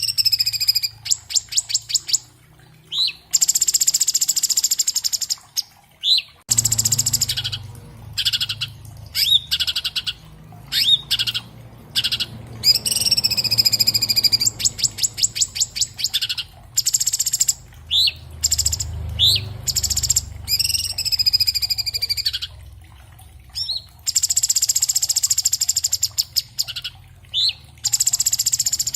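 Orange-bellied leafbird (Chloropsis hardwickii) singing a fast, tightly packed song: short high rising whistles alternating with long rapid trills of repeated notes.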